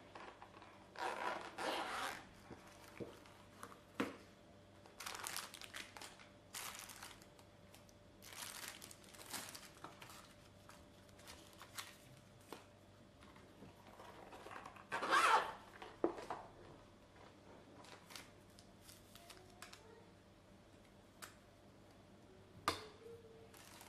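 Unboxing handling noise: a zippered sunglasses hard case being unzipped, then plastic packaging bags crinkling as the contents are lifted out. It comes as short separate bursts of rustling, the loudest about fifteen seconds in, with a few sharp clicks.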